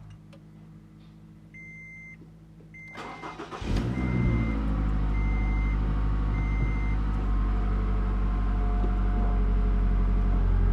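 Scion tC's 2AR-FE 2.5-litre four-cylinder cranked by the starter about three seconds in, catching almost at once and settling into a steady idle. A dashboard chime beeps five times as it starts. With the new water pump fitted, the idle is free of the old bad-bearing noise.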